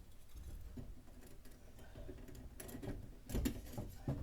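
Light clicks and taps of small metal parts being handled, with a few close together near the end, as a hose clamp is fitted to a diesel heater's exhaust muffler.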